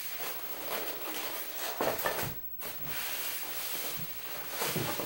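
Polystyrene foam packing trays rubbing and scraping against each other and the tabletop as the top layer is slid off and set down, with a few light knocks.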